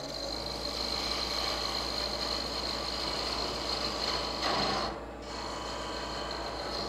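Wood lathe running while a hand-held turning tool cuts into a spinning wooden knob blank, giving a continuous rasping, scraping cut over the lathe's low hum and steady high whine. The cut eases for a moment about five seconds in.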